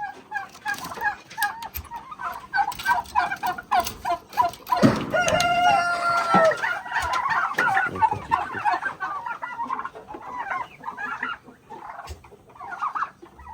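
Chickens clucking in a run of short repeated calls, with a rooster crowing once, loud and held for under two seconds, about five seconds in, then more clucking and chatter from the flock.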